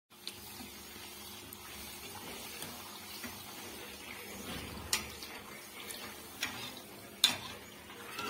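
A puffed bhatura deep-frying in hot oil, sizzling steadily, with a few sharp clicks of a metal slotted skimmer against the pan as it presses and turns the bread, the loudest about seven seconds in.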